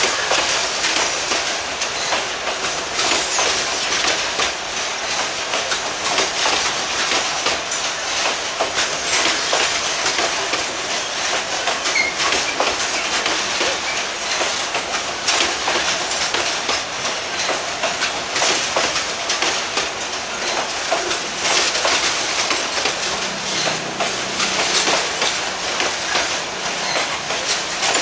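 Loaded freight boxcars rolling steadily past at close range, their wheels clattering over the rail joints in a continuous run of clicks.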